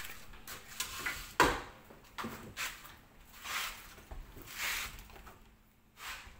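Someone moving about and handling things: a sharp knock about a second and a half in, then several short, soft swishes and rustles.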